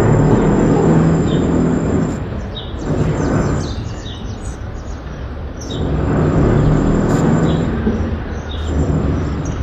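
Construction-site noise: machinery running with a low rumble that swells and eases every few seconds. Short bird chirps repeat over it.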